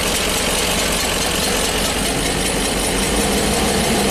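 Ford 6.8-litre V10 engine running steadily under load and unevenly, with a two-cylinder misfire: cylinders 8 and 9 are dead.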